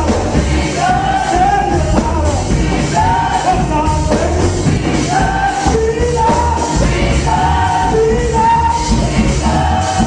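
Live church praise band playing with singing: voices carrying the melody over bass and drums with a steady beat, loud and echoing in a large hall.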